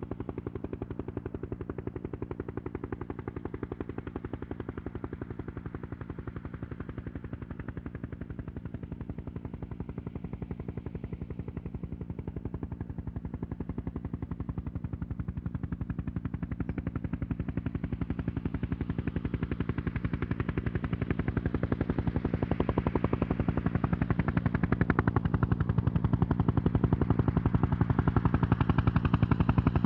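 Bell 212 helicopter approaching slowly, with the rapid, even beat of its two-bladed main rotor. It grows steadily louder and brighter through the second half.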